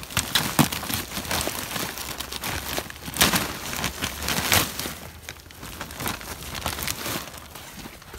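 Clear plastic bag crinkling and rustling as it is gripped and handled, with irregular crackles that are loudest a little past the middle and thin out near the end.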